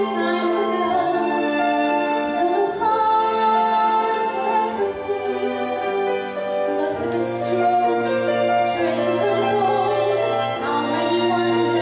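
A woman singing live into a microphone, accompanied by grand piano and a small string orchestra. A low sustained bass note comes in about seven seconds in.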